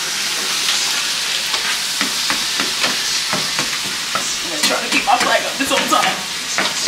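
Food sizzling in a hot frying pan while a utensil stirs it, clicking and scraping against the pan, more often in the second half.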